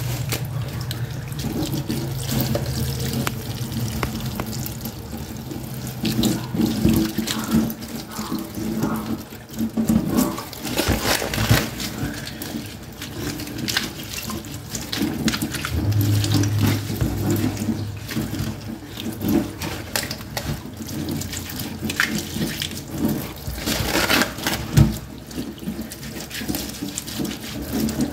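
Kitchen tap running a thin stream of water onto lettuce in a plastic colander in a stainless steel sink, with irregular splashing and the wet rustle of leaves being rubbed and turned under the water.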